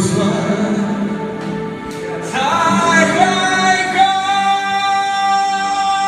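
A person singing a pop song with musical accompaniment. About two seconds in, the voice rises onto a long, steady held note.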